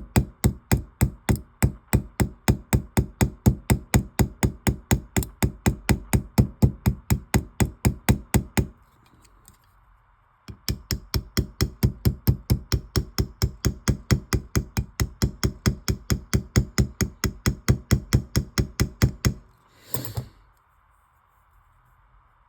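Small hammer tapping rapidly and evenly on a straight razor's pivot pin, about four to five light strikes a second, peening the pin to pull a blade that rides to one side back to centre. The tapping pauses for a moment partway through, then resumes, and a brief noise follows near the end.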